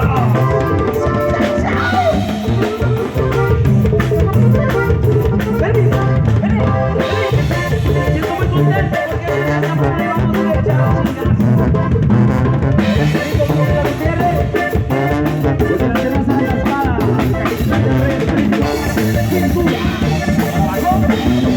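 Live band playing a cumbia medley, the drum kit keeping a steady beat under the instruments.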